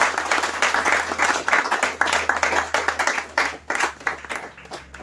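A small group of people clapping their hands, a dense, uneven patter of claps that thins out and stops near the end.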